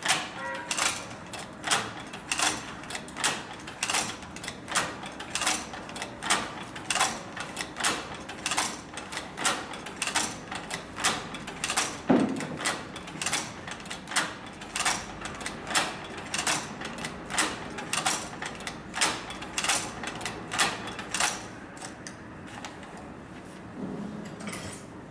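Cowboy Outlaw hand-operated leather stitcher sewing, its mechanism clicking sharply with each stroke in a steady rhythm of about two to three clicks a second. The clicking stops shortly before the end.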